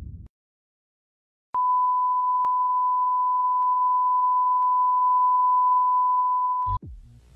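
A steady electronic beep tone near 1 kHz, starting about a second and a half in and held for about five seconds, then cut off near the end with a short downward sweep into a low hum.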